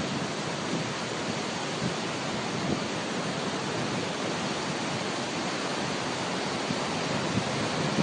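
Tall waterfall in heavy flow, a steady rush of falling water crashing into spray.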